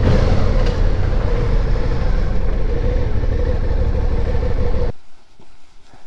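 Riding noise of a Suzuki V-Strom DL650 XT on the move: its 645 cc V-twin engine running steadily under a heavy low wind rumble on the camera microphone, cutting off suddenly near the end.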